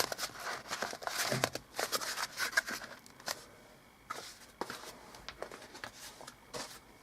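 Cardboard being folded over and wrapped around a product by hand: a busy run of scraping and clicks for about three seconds, then only occasional taps.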